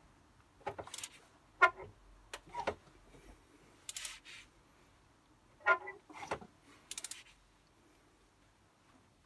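Intermittent metal clinks and short bursts of clicking from hand tools as a BMW M57 diesel engine is turned over by hand to bring the camshaft lobes round for a timing check. The loudest is a ringing clink about one and a half seconds in.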